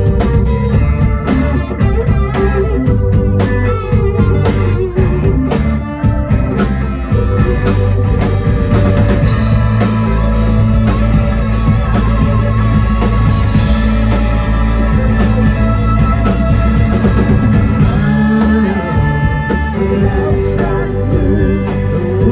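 Live rock band playing loudly: electric guitars over a drum kit.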